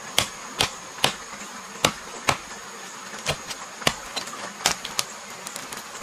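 Machete chopping into a small tree trunk: about eight sharp strikes at an uneven pace, with lighter knocks between, over a steady high insect drone.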